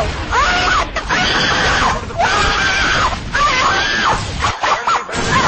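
A young child screaming loudly in a run of about five high-pitched screams. Short breaks separate them, and the pitch rises and falls within each scream.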